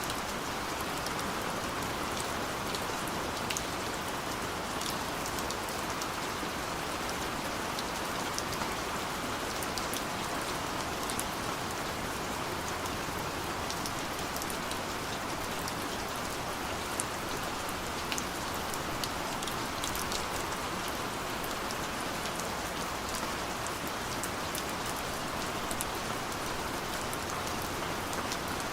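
Steady rain falling, a constant hiss with many small drop ticks scattered through it.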